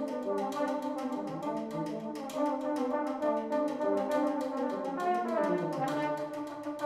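Brass band music played by a school senior brass band, with sustained chords and moving melody lines, and a descending run about five seconds in.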